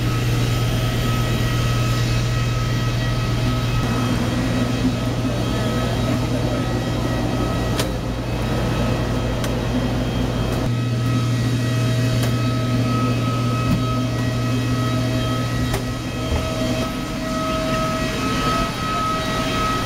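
Steady mechanical drone from a parked airliner and its ground equipment on the airport apron: a strong low hum with several steady whining tones above it. The deepest rumble drops away about halfway through.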